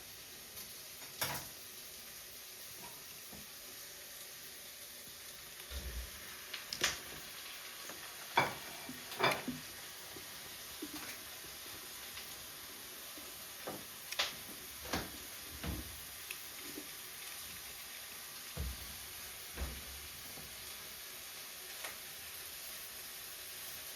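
Small objects being handled by hand: irregular light clicks and taps, a dozen or more, scattered over a steady hiss. This is typical of diecast toy cars and their plastic and cardboard packaging being picked up and set down.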